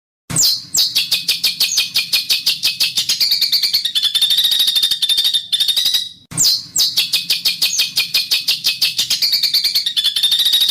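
Songbird giving a long, rapid run of harsh rattling notes, about ten a second. The run breaks off briefly about six seconds in and starts over. This is a masteran recording of 'besetan kasar' harsh rattles, used to tutor contest songbirds.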